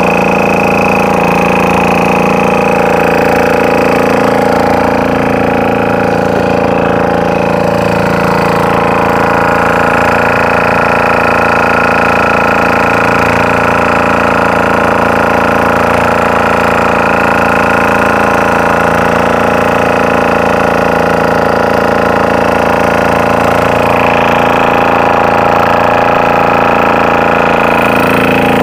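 Fishing boat's engine running loud and steady at a constant speed.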